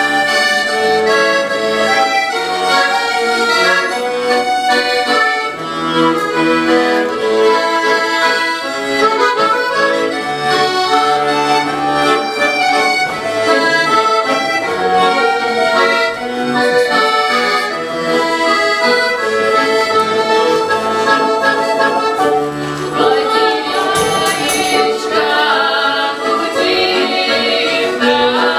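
Accordion playing a lively Russian folk stradania tune, continuous and full.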